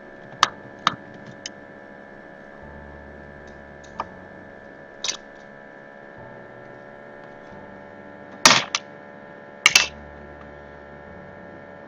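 Light clicks and knocks of small tools being picked up and set down on a repair bench over a steady electrical hum, with two louder clatters about two-thirds of the way through.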